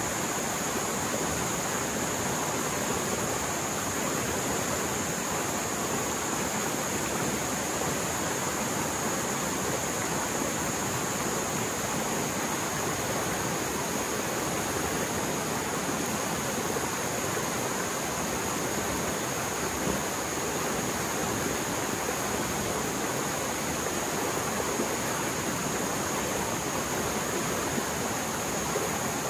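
Mountain stream in spate after heavy rain, its water rushing fast and roaring steadily without a break.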